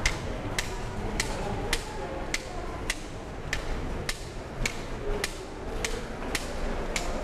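White cane tip tapping on a hard floor in a steady walking rhythm, about one sharp tap every 0.6 seconds, over a low background hum.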